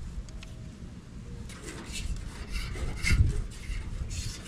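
Rough scraping and rubbing on the painted sheet-metal top of a scrap-built camp wood stove, with burnt white paint being scraped off. Rustling steps and a low thump come about three seconds in.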